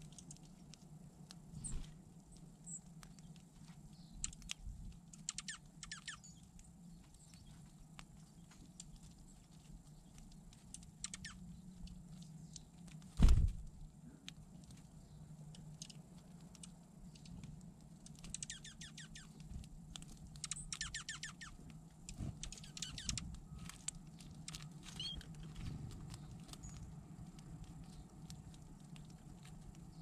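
Small birds, dark-eyed juncos among them, pecking and scratching in seed on snow right beside the camera: scattered light taps and clusters of quick high ticks, with one loud knock about 13 seconds in.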